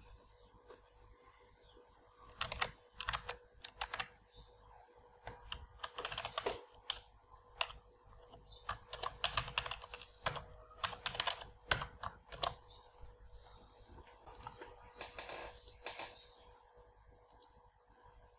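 Typing on a computer keyboard: irregular runs of quick keystrokes, sparse at first and steady from about two seconds in, with a faint steady hum underneath.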